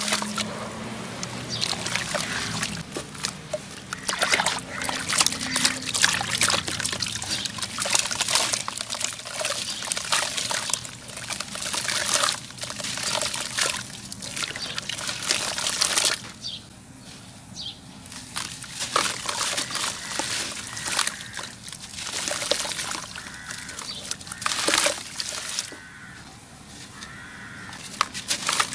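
A wet, gritty sand-and-cement lump being crumbled by hand into a basin of water: grains and crumbs pour and trickle into the water with a crackly, gritty splashing. Twice, about halfway and near the end, it briefly goes quieter.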